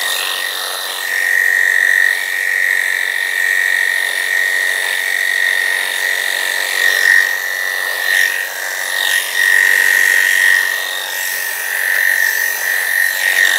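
Electric dog grooming clippers running with a steady high buzz, rising and falling in loudness as the blade shaves through a standard poodle's coat.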